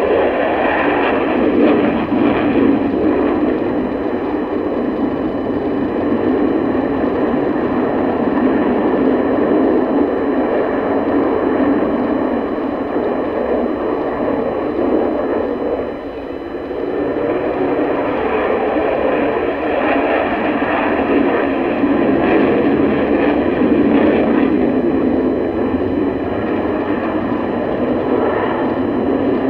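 Loud, steady jet noise from a Sukhoi Su-30 fighter's twin turbofan engines in flight. It dips briefly about halfway through and swells again.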